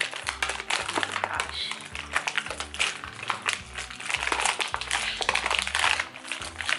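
Clear plastic toy packaging crinkling and clicking as it is handled and pulled open, over background music with a steady bass line.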